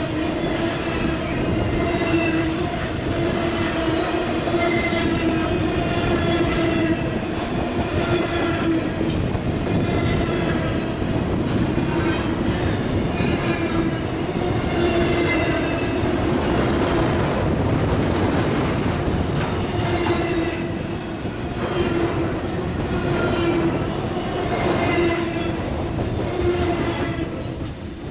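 Double-stack intermodal freight train rolling past at close range: a steady rumble of wheels on rail with a high, wavering squeal from the wheels. The noise drops off near the end as the last cars go by.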